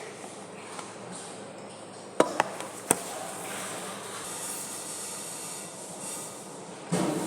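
Kitchen handling noise: three sharp clicks of hard objects knocking together about two seconds in, over a steady hiss, with a short louder clatter near the end.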